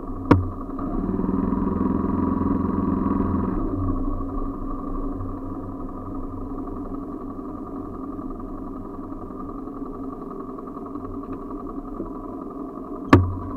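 Motorcycle engine running as the bike is ridden at low speed. It grows louder for a couple of seconds about a second in as the rider opens the throttle, then settles back to a steady run. A sharp knock comes just after the start and another near the end.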